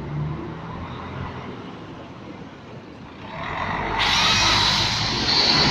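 Road traffic: a heavy vehicle coming close and passing, its engine and tyre noise swelling about three seconds in and staying loud to the end.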